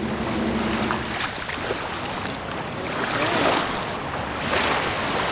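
Wind on the microphone over small waves lapping at the shoreline, with a low steady hum that stops about a second in and faint voices in the background.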